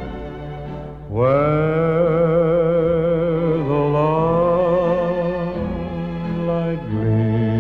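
Background music: a slow melody of long held notes with vibrato over a sustained lower accompaniment. The lead swoops up into a note about a second in.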